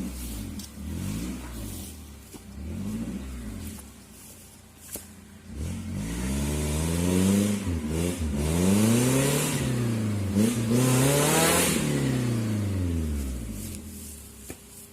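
Suzuki Jimny 4x4's engine revving under load on an off-road trail: a few short blips of throttle, then several seconds of hard revving that rises and falls repeatedly, with a rushing hiss at the loudest part, before it eases off near the end.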